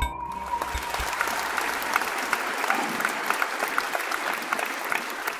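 Audience applauding: a steady patter of many hands clapping. The last of an electronic intro tune dies away just at the start.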